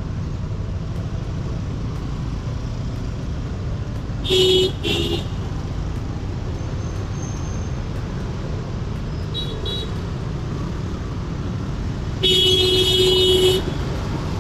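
Steady rumble of riding a motorbike in city traffic, with a vehicle horn honking twice in quick succession about four seconds in, a faint double beep around the middle, and one longer horn blast of over a second near the end.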